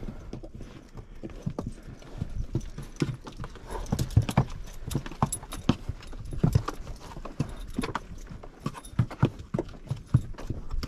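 Hooves clip-clopping in an uneven, overlapping patter as a string of trail animals walks past on the trail.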